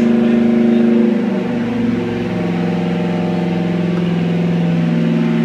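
A carburetted Holden 308 V8 stroked to 355 cubic inches running on an engine dyno under load. It holds a steady speed, then drops to a lower steady speed between one and two seconds in, as the dyno is set to hold fixed rpm points.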